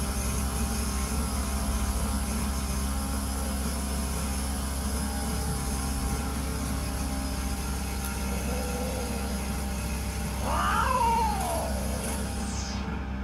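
Cats mating: a cat gives one long yowl that rises and falls about ten seconds in, after a fainter short call a little before, over a steady low rumble.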